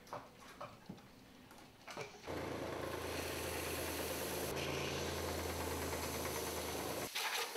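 Electric belt sander running, with a steady motor hum and the hiss of the abrasive belt as a small wooden part is held against it. It starts about two seconds in and cuts off suddenly near the end.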